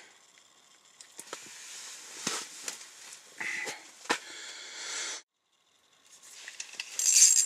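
Rustling and scattered sharp clicks of gear and clothing being handled close to the microphone. The sound breaks off in a dead gap about five seconds in, then comes back with a louder rustle near the end.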